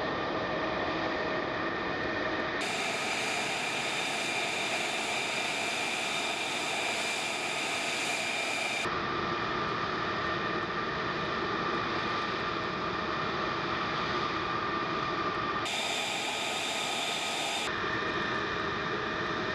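F-35A Lightning II's F135 turbofan running at low power while taxiing and parking: a steady rushing noise with a high-pitched whine. The whine's pitch jumps abruptly a few times.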